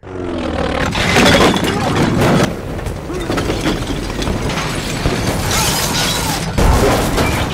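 Film sound of the XF-11 aircraft crashing through house roofs: a continuous din of smashing, breaking and shattering.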